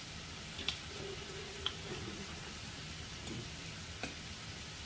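Faint steady simmer of broth in a hotpot, with a few soft, scattered clicks from eating.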